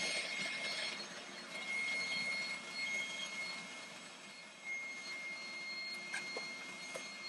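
Prolux wet/dry garage vacuum running while its floor tool and wand are worked over carpet: a steady motor whine over the hiss of suction, with the footage played back at four times speed. A few light knocks near the end.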